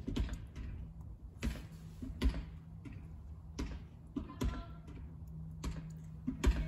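Handling noise: scattered light clicks and knocks as a removed brass pressure reducing valve is turned over in the hand, about once a second, over a faint steady low hum.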